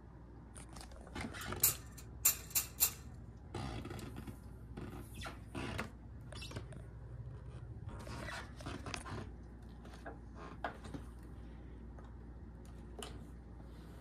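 Vintage kid-size Hoover Junior vacuum cleaner being handled and pushed over carpet: irregular scraping and clicking, with a cluster of sharp clicks about two to three seconds in. No steady motor sound.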